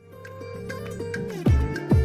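Background music with a plucked-string melody, fading in, with two deep booming hits about a second and a half in and near the end.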